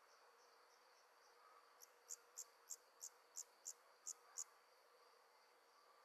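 Crickets trilling steadily at night. A closer insect gives about eight sharp, high chirps, roughly three a second, for a couple of seconds midway.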